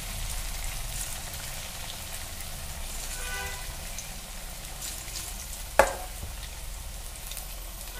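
Puffed-rice (mandakki) fritters deep-frying in hot oil in a steel kadai: a steady sizzle of bubbling oil. A single sharp knock about six seconds in.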